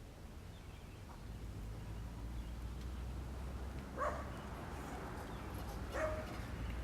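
A dog barking twice, two short barks about two seconds apart, over a low steady background rumble.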